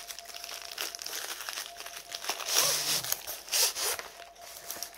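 Clear plastic sleeve crinkling and rustling as a rolled diamond-painting canvas is handled and slid out of it, in irregular bursts with the sharpest crackles a little past halfway.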